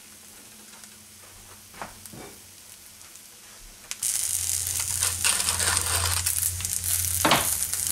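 An egg frying in oil in a nonstick pan: a low, quiet stretch with a couple of faint knocks, then a loud steady sizzle that starts suddenly about halfway through. Over the sizzle comes the crunching of a pepper mill grinding pepper onto the egg.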